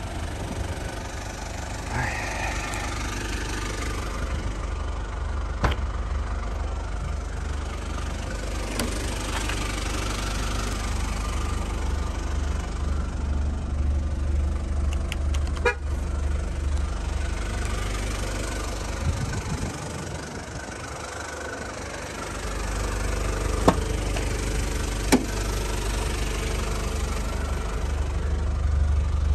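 Mazda Bongo Friendee's WL-T 2.5-litre four-cylinder turbo diesel idling with a steady low drone, heard around and inside the cab. A few sharp clicks and knocks come through, and the drone dips briefly about two-thirds of the way in.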